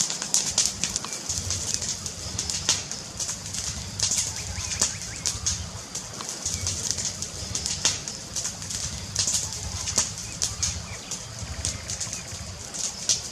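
Wood fire crackling: many irregular sharp pops and snaps over a low, uneven rumble.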